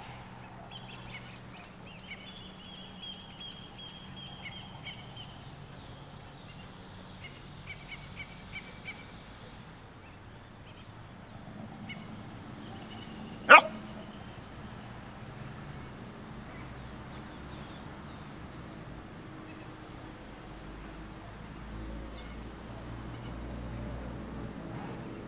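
A young dog gives one short, sharp bark about halfway through. Faint high chirps and whistles come and go around it.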